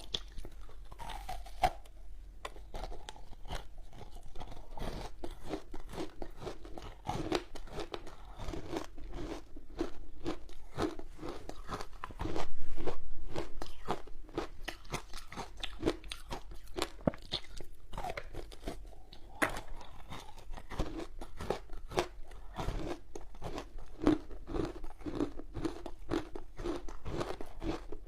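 Person biting and chewing frozen passion fruit ice, a steady run of irregular crisp crunches, with a louder burst about halfway through.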